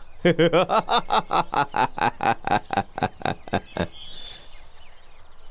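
A man laughing in a long run of quick 'ha-ha' bursts, about five a second, gloating over a win. The laughter fades off after nearly four seconds, leaving faint bird chirps.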